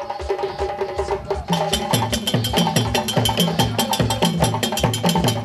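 Background music with a steady percussion beat that turns fuller about a second and a half in, with quick clicking strokes over a bass line.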